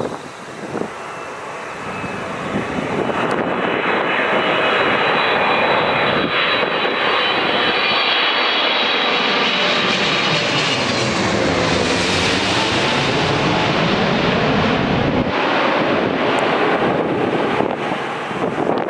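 Boeing 777-300ER's GE90 turbofan engines on landing approach passing close by: a jet roar that builds over the first few seconds, with a high fan whine, stays loud through the pass and eases slightly near the end.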